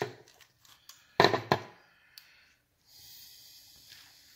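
Handling noise from small tools and wires being worked by hand: a knock at the start, a louder double knock about a second in, then a soft steady rustle.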